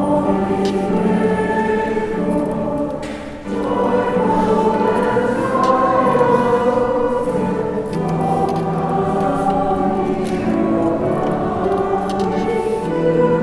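Choir singing, with a short break between phrases about three and a half seconds in.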